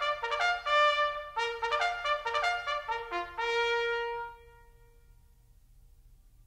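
A solo trumpet plays a quick fanfare of short, crisply tongued notes, then holds one long note that dies away about four seconds in.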